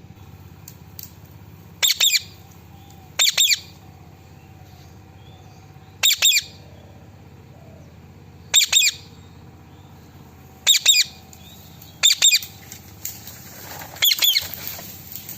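Indian ringneck parrot calling: about seven short, high-pitched calls, each a quick double or triple note, repeated every one to two and a half seconds.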